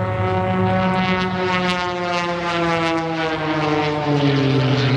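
Aircraft flying past, a steady engine drone with many even overtones that falls slowly in pitch as it goes by.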